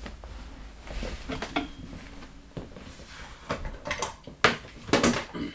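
Small metal tools and a padlock being handled: a scattering of separate light clicks, taps and clinks, the sharpest a little past four seconds in.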